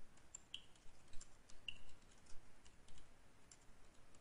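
Typing on a computer keyboard: faint, irregular key clicks, two or three a second.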